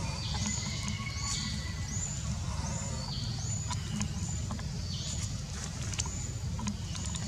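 A high-pitched call that steps up in pitch, repeating a little more than once a second, over a steady low rumble, with a few sharp clicks.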